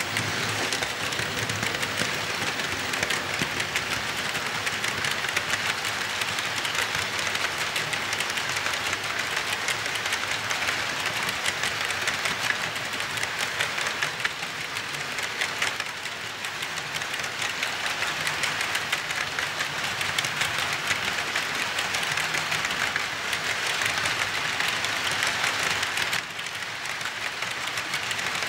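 Model freight train rolling past on sectional track: a steady, dense rattle and clicking of the cars' metal wheels over the rail joints. It eases slightly about halfway through and drops a little near the end.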